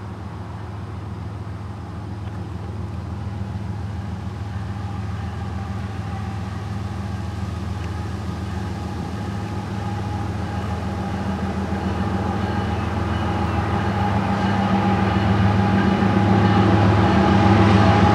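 Diesel engines of two GE locomotives, an ES44AC and an ET44AC, leading a freight train on its approach: a steady low hum that grows steadily louder.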